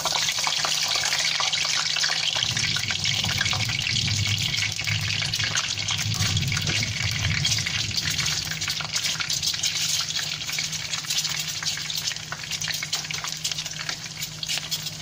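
Peeled hard-boiled eggs frying in hot oil in a pan: a steady sizzle full of fine crackles, easing slightly near the end.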